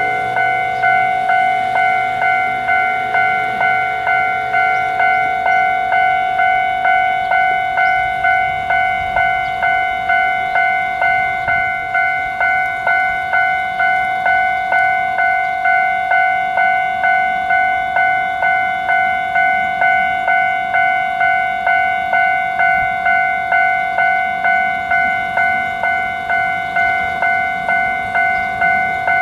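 Japanese railroad level crossing warning bell ringing its steady 'kan-kan' alarm, about one and a half strikes a second, each ringing tone dying away before the next: the signal that a train is approaching and the barriers are down.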